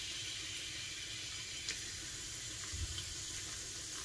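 Carbonated lemon-lime soda poured from a can over crushed ice in a tall glass: a steady fizzing hiss of the pour and the bubbles, with a few faint ticks of ice.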